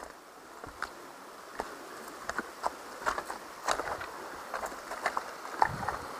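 Mountain bike rolling fast along a dirt trail: a steady rushing hum of tyres on the ground that builds over the first couple of seconds, with many scattered clicks and rattles.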